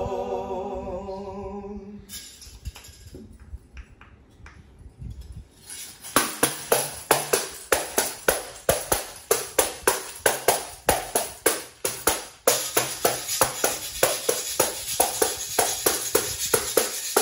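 Sung notes over acoustic guitar die away in the first two seconds. After a few seconds of scattered taps, a hand-played tambourine and a metal güira begin a steady percussion rhythm about six seconds in, about three strokes a second. From about twelve seconds in, a continuous high scraping hiss runs under the strokes.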